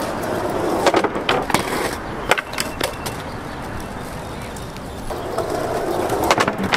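Skateboard wheels rolling over rough alley asphalt, with several sharp clacks of the board about a second to three seconds in. The rolling dies down in the middle, then builds again near the end.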